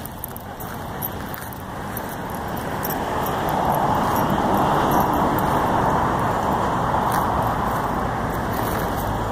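Road traffic noise that swells to a steady rush about three seconds in.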